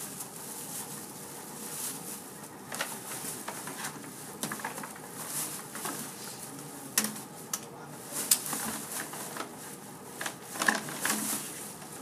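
Plastic shopping bags rustling and crinkling as their handles are gathered and clipped onto a metal carabiner, with scattered sharp clicks and clinks from the carabiner and the goods in the bags, busier in the second half.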